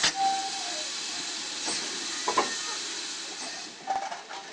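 Steam hissing steadily from GWR 2-6-2T tank locomotive No. 4160 standing at the platform, with a sharp knock at the start and a clank about two and a half seconds in. The hiss drops away near the end.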